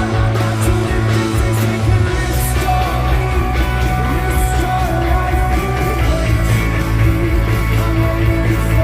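Live rock band playing, with heavy bass, electric guitars, drums and cymbals, and a sung line over the top.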